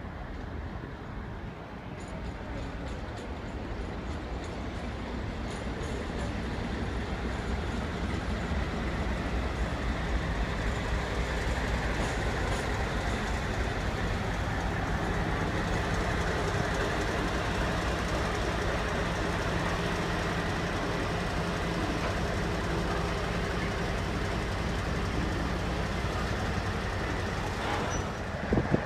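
Diesel train passing, its engine note building over the first ten seconds and then holding steady, with faint clicks from the wheels over the track early on.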